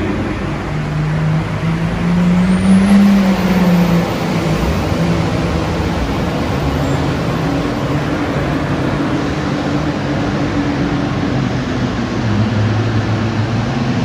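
Diesel tractor engines running, one revving up and back down about three seconds in.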